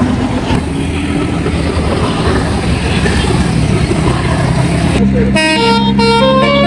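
Bus traffic noise, then about five seconds in a bus's basuri telolet musical horn starts playing a tune: quick shifting notes over a steady low tone.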